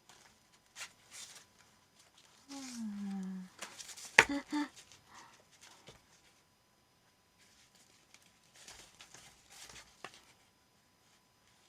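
Paper calendar pages and a tie being handled, with soft rustles and crinkles. About two and a half seconds in comes a short falling hum-like vocal sound, and a sharp tap or click at about four seconds is the loudest moment.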